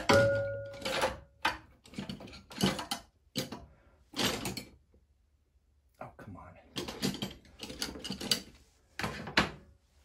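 Irregular clicks, knocks and rattles of hands and tools working on scooter parts, opening with a brief metallic ring, with a short lull about five seconds in.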